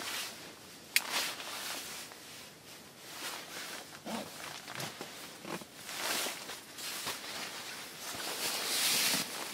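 Nylon fabric of a hammock underquilt and its cover rustling as they are handled and tucked, with boots shifting on packed snow. A sharp click about a second in, and the rustling swells louder near the end.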